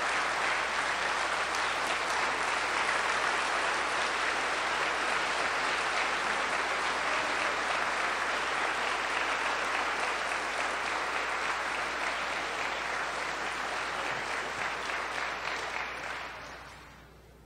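A large audience applauding steadily; the clapping dies away near the end.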